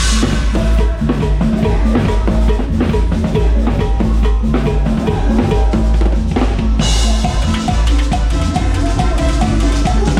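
Live cumbia band playing, with the drum kit up front: kick drum, snare and rimshots keeping the beat over the band's pitched instruments. The sound turns brighter in the highs about two-thirds of the way through.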